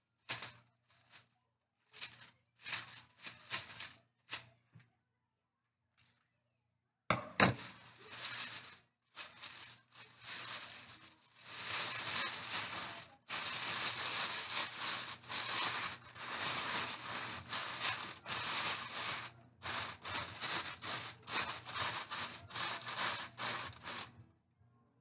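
Plastic oven roasting bag rustling, crinkling and tearing as it is handled and opened around a freshly baked chicken: broken scraping at first, one sharp knock about seven seconds in, then nearly continuous rustling.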